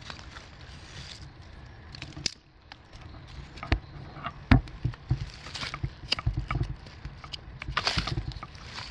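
Footsteps and rustling through damp leaf litter, with irregular thuds and cracks of twigs underfoot, and a longer rustle of disturbed leaves near the end.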